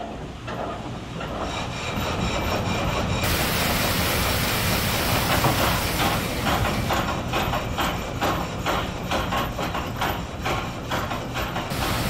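Water rushing through and spilling out beneath a water-powered sawmill, louder from about three seconds in. From about seven seconds in, a rapid, even knocking of the running mill machinery sits over the water.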